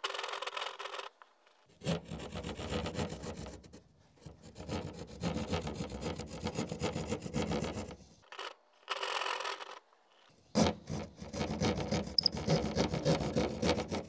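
Hand drywall saw sawing through drywall in quick rasping strokes, cutting out a wall-plate opening. It goes in several runs with short pauses between.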